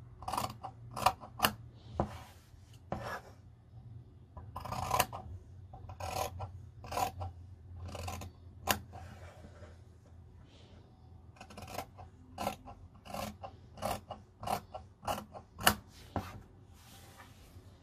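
Scissors cutting through two layers of cotton fabric: short crunching snips, irregular and about one a second, sometimes in quick runs, with light fabric rustling between them.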